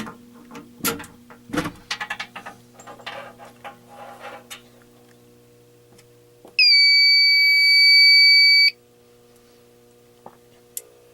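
Clicking and handling noise from a fire alarm panel being reset. About six and a half seconds in, a fire alarm sounder gives one loud, steady, high-pitched electronic tone for about two seconds, then cuts off sharply. A faint steady electrical hum runs underneath.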